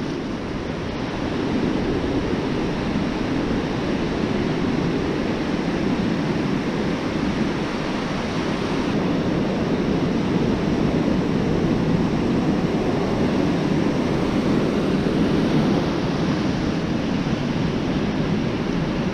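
Ocean surf breaking and washing onto a beach: a steady rush of waves that swells and eases slightly.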